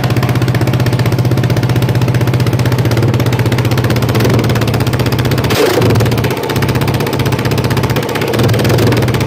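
2017 Yamaha Raptor 700R's single-cylinder four-stroke engine, fitted with an FMF Powerbomb header, idling steadily and loudly. From a little past halfway it is given repeated throttle blips, the revs rising and falling.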